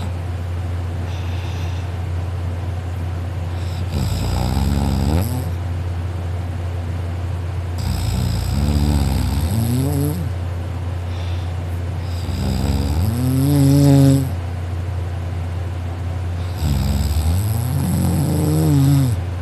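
A person snoring hard and loud in deep sleep: four snores about every four seconds, each rising in pitch, over a steady low hum.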